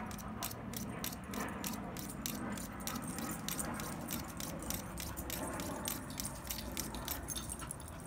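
Stainless pocket-knife blade drawn again and again through a small handheld knife sharpener: quick, repeated scraping strokes of metal on the sharpener as the edge is ground down.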